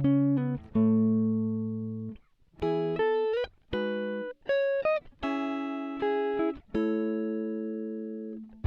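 Intro music: a melody of plucked, guitar-like notes and chords, each struck and left to fade, with short gaps between phrases.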